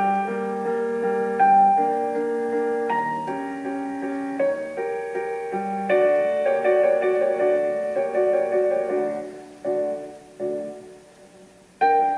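Piano music: a slow run of sustained chords and melody notes. It thins out and quietens about ten seconds in, then a loud new chord comes in near the end.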